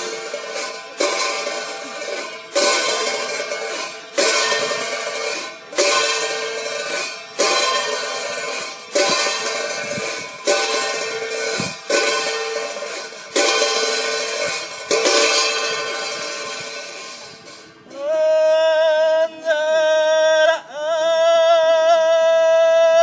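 A ritual bell struck about every one and a half seconds, a dozen or so strokes, each ringing on and fading. About three quarters of the way in it gives way to a long held tone with a slight waver, broken twice.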